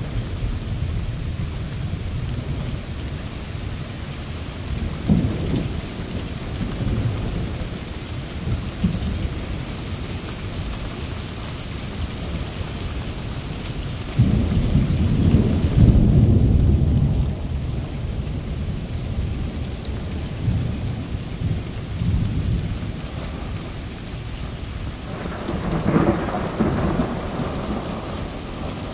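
Steady rain falling with rolling thunder. The thunder swells loudest about halfway through, and another rumble comes near the end.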